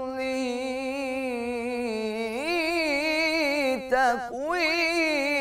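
Solo unaccompanied male voice singing Islamic devotional inshad, drawing out long melismatic notes with vibrato. The pitch steps up a little past two seconds in, and there is a short break in the voice around four seconds.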